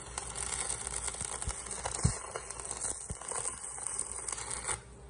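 Stick (shielded metal arc) welding with a 5.0 mm electrode on a Taiwan Power ARC-250 inverter welder: the arc crackles steadily, then cuts off suddenly near the end as the rod is lifted from the work.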